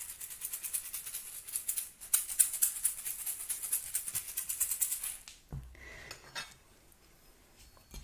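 An egg shaker shaken rapidly in quick, even strokes, pausing briefly about two seconds in and stopping about five seconds in.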